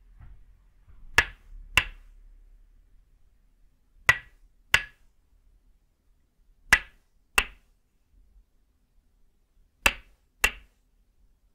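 Tok sen wooden mallet striking the end of a wooden stake held against the back, giving sharp, short wooden knocks. They come in pairs, the second knock about half a second after the first, with four pairs evenly spaced about three seconds apart.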